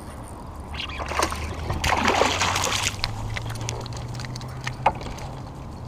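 Water splashing as a small hooked spotted bay bass is brought to the kayak, loudest for about a second around two seconds in, followed by a few light clicks and knocks.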